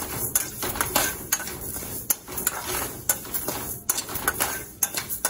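A spatula scraping and knocking against a hammered aluminium kadai while stirring rice, coriander seeds and whole spices as they roast, the grains rattling in the pan. The strokes come as irregular sharp clicks and scrapes, several a second.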